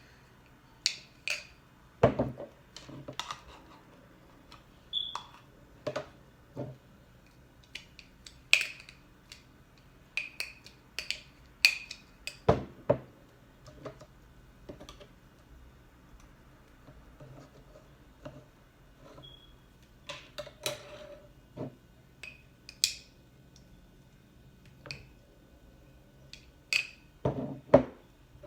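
A spoon clinking and scraping against a small jar in scattered, irregular taps as solid coconut oil is scooped and knocked off into it.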